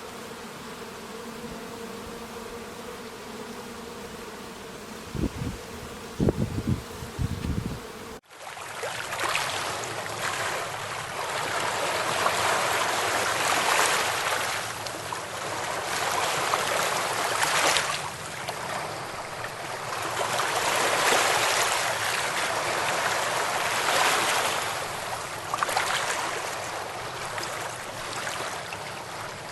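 An insect buzzing steadily, with a few dull thumps. About eight seconds in it cuts off and gives way to a rushing of water that swells and eases every few seconds, like surf.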